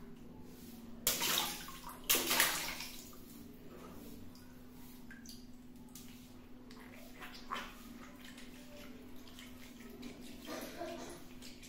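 Water balloons bursting and the water splashing out: two loud sudden bursts about a second apart near the start, each trailing off in a splash, then a few fainter splashes later on.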